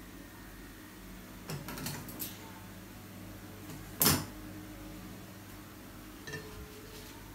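Handling noises of flower arranging: a few soft rustles and light clicks as flowers and stems are worked into a vase, with one sharp, louder click about four seconds in, over a low steady hum.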